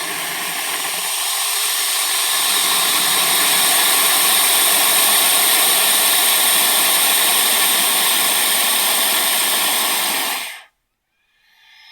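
Snake hissing: one long, steady hiss lasting about ten seconds that cuts off suddenly, followed near the end by the start of another, quieter hiss.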